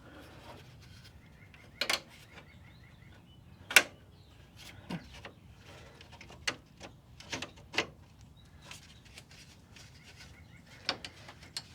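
Scattered sharp clicks and knocks of hand tools and small grille fasteners being handled and fitted, with a short run of faint rapid ticks in the first few seconds.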